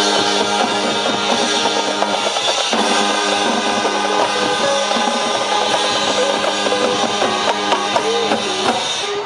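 High school marching band playing: brass holding chords over the drumline's steady beating, with a short break in the chords about three seconds in.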